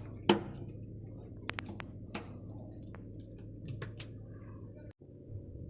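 A fishing boat's steady low engine hum, with scattered sharp clicks and knocks of gear being handled on deck. The loudest knock comes about a third of a second in.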